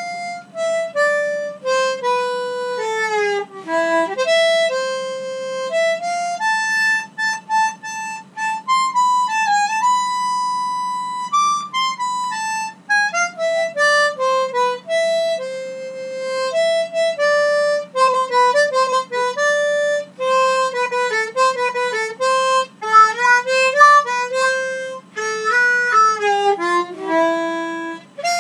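A three-octave harmonica in C playing a slow solo melody, one note at a time, with notes held and joined in phrases and short breaks between them.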